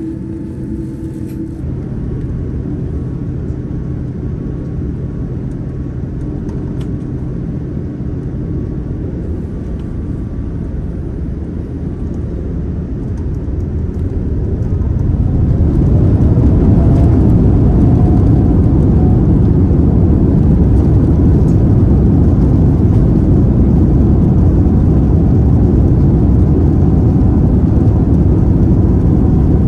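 Boeing 787-9 Dreamliner heard from inside the cabin: a steady engine hum while taxiing, then about halfway through the engines spool up with a brief rising whine and the noise swells into a loud, steady rush as the takeoff roll begins.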